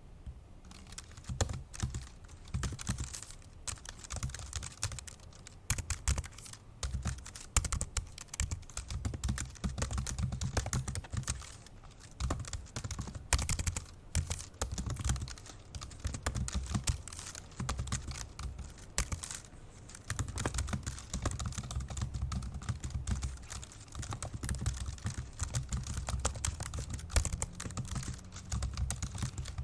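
Fast, forceful typing on an old MacBook Pro's built-in laptop keyboard: a dense, irregular run of key clicks, with a few short pauses.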